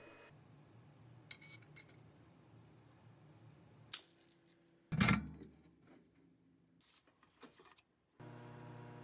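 Light metallic clicks and knocks of a small stainless-steel piece handled on a steel welding table, the loudest a single thud with a ring about five seconds in. Near the end a low steady hum sounds for about a second and cuts off.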